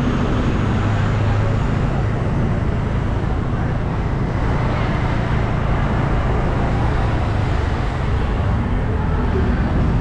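Steady road traffic noise: vehicle engines running with a low hum and tyre noise on the road.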